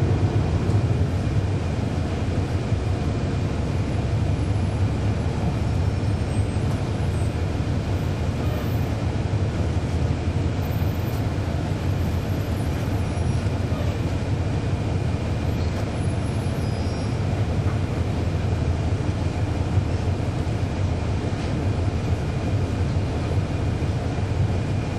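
Steady low rumble of a 2012 NABI 416.15 (40-SFW) transit bus heard from inside the cabin, its Cummins ISL9 inline-six diesel running evenly with the near-silent ZF Ecolife automatic transmission.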